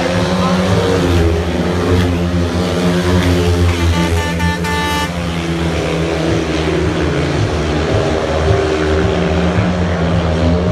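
Speedway racing engines running on the track, their pitch rising and falling as the machines go round over a steady low drone. About four seconds in, a horn sounds for about a second.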